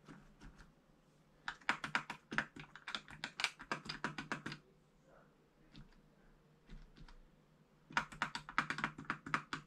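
Bare Alps key switches on a Canon V-20 MSX computer keyboard, caps removed, pressed one after another to test them after cleaning. The switches give rapid clicks in quick runs: a long run from about a second and a half in, a few scattered presses in the middle, and another quick run near the end.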